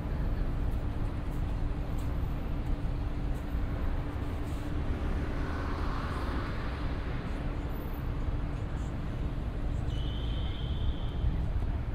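City street traffic: vehicles running with a steady low rumble, one passing by in the middle, and a short high steady tone about ten seconds in.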